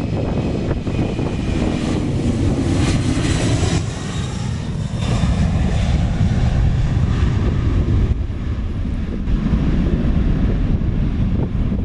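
Boeing 767-300 freighter's twin turbofan engines at takeoff power as it lifts off and climbs out: a loud, steady jet roar with a deep rumble, and a high whine over it a few seconds in.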